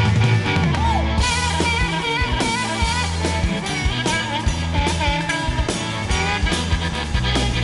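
Amplified harmonica solo, the harmonica cupped around a handheld microphone, playing bent, wavering notes over a live band's bass and drums.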